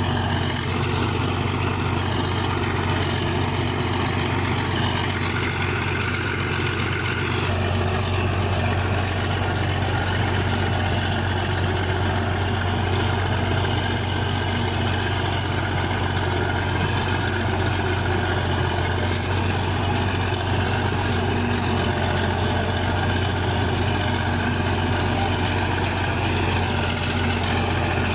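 Bulldozer's diesel engine running steadily, with an abrupt change in its sound about seven seconds in.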